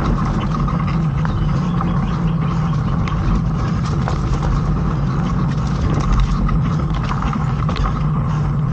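Mountain bike rolling along a dirt singletrack, heard on a rider-mounted camera: a steady rumble of wind and tyres on the microphone, with scattered clicks and rattles from the bike over the rough ground.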